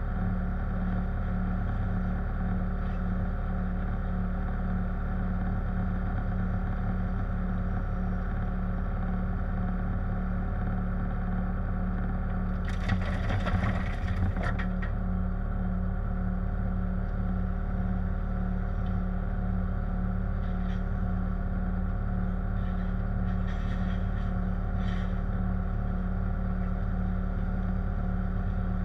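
Diesel engine of a Bobcat compact machine running steadily under work, with a steady hum. About thirteen seconds in comes a clatter lasting a couple of seconds, loose shale rattling as it is scooped or dumped, and a few faint knocks follow later.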